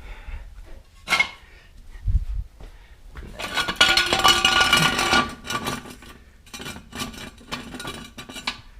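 Steel jack stand being handled and set in place. A knock and a thud, then about two seconds of metallic clanking and rattling with a ringing tone, then a run of lighter metal clicks near the end.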